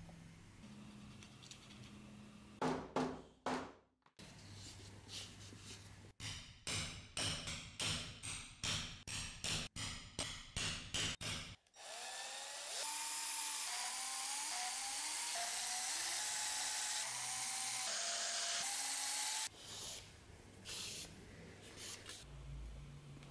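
Cordless drill running for about seven seconds in the second half, boring holes through layered leather strap, its motor whine wavering up and down with the load. Before it, a run of about a dozen short strokes, roughly two a second.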